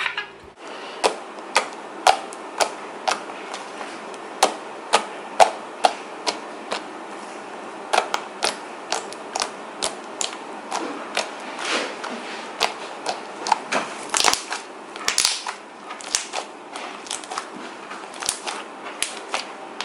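Thick, doughy white mochi slime being poked and squeezed by hand, giving sharp wet clicks and pops about two a second over a steady hiss.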